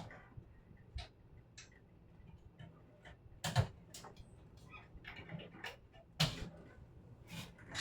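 Irregular clicks, taps and short scrapes a second or more apart, loudest about three and a half and six seconds in: small tools and parts being handled during repair work.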